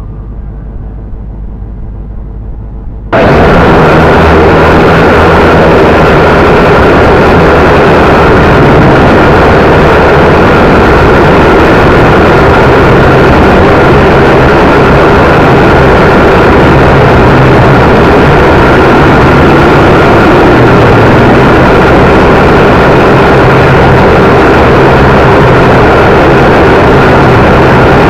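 V959 quadcopter's coreless brushed motors and propellers: a quieter whine for about three seconds, then a sudden jump to a very loud, steady rushing noise that holds through the flight.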